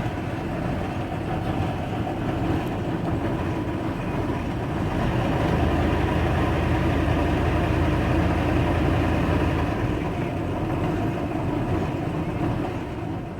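An engine running steadily at a constant speed, a low hum that fades away near the end.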